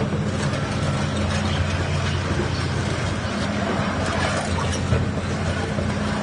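Hydraulic pump of a radio-controlled Komatsu PC360 excavator running with a steady hum while the machine works.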